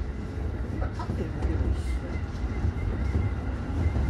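Running noise of a JR 211 series electric multiple unit, heard inside the leading car behind the driver's cab: a steady low rumble of wheels and motors on the track.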